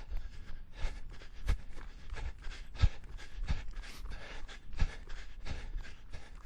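A person panting hard while running: quick, rhythmic breaths in and out, with low thuds of footfalls at a steady running pace.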